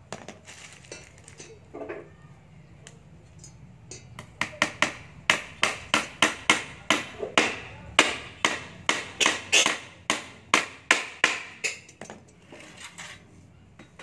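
Hand hammer striking a small wooden stool frame made of rough boards: after a quiet few seconds, a fast run of sharp blows, about three or four a second, starting about four seconds in, then stopping, with a few last taps near the end.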